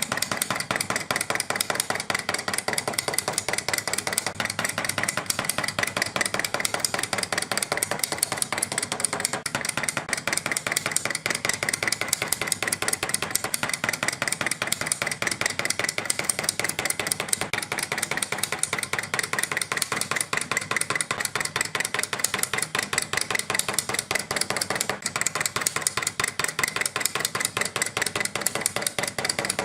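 Toy dentures clacking shut over and over: a fast, unbroken run of sharp clicks.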